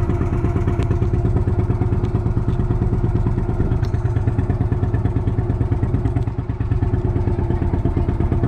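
Small boat's engine running steadily at constant speed, with a fast, even pulse.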